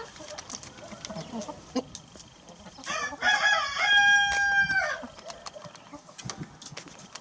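A rooster crows once, starting about three seconds in: a call of about two seconds that rises, holds level, then breaks off. Faint scattered clicks come before and after it.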